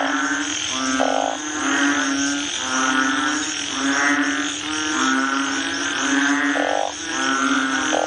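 Chorus of banded bullfrogs calling: overlapping low, droning calls repeating about once a second, with short buzzy calls now and then.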